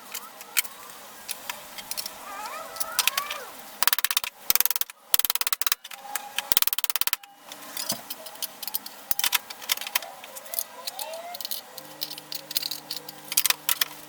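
Thin scrap sheet metal being handled and bent by hand: scattered light metallic clicks, clanks and rattles, with two spells of rapid clicking about four and seven seconds in. A low steady hum comes in near the end.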